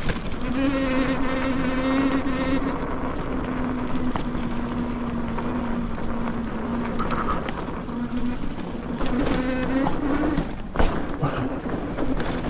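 Bafang electric hub motor, driven by a Flipsky VESC controller, whining under throttle as a steady buzzing tone. The tone sinks slowly in pitch and rises again near the end before cutting out, over bike rolling and wind noise, with a couple of sharp knocks near the end.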